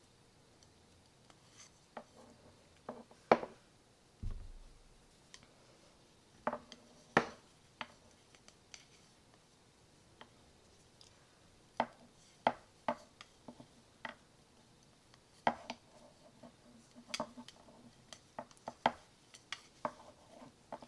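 Large wooden knitting needles clicking and tapping against each other at irregular intervals while stitches are bound off, with a soft low thump about four seconds in.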